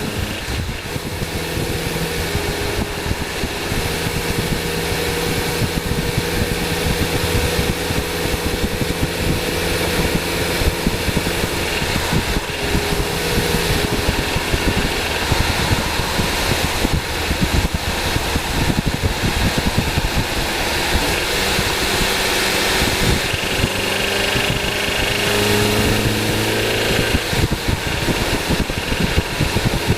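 Nissan 240SX's KA24DE four-cylinder engine idling steadily with fan noise, running on its newly fitted alternator.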